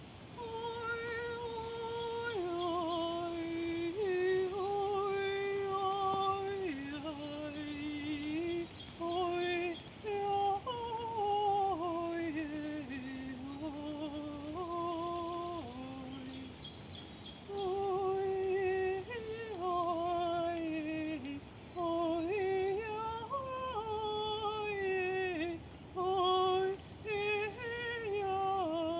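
A woman's solo wordless singing in sound channeling: long held notes with a slight vibrato that step and slide between pitches, with short breaks for breath.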